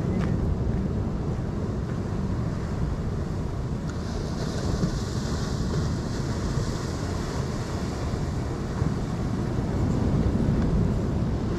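Wind buffeting the microphone over the steady wash of ocean surf breaking against rocks. A brighter hiss sets in about four seconds in.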